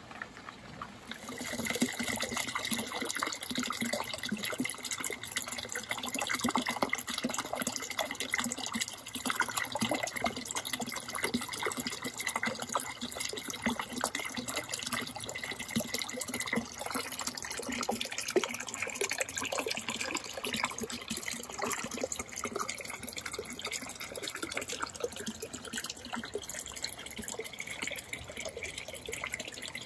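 Steady splashing and trickling of water from a small floating solar fountain spraying into a garden basin, mixed with rain dripping; the spatter picks up about a second and a half in and then holds steady.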